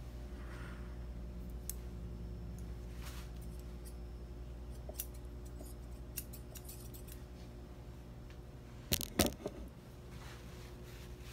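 Metal grooming shears clicking lightly a few times, with a sharp pair of snips about nine seconds in, over a steady low hum.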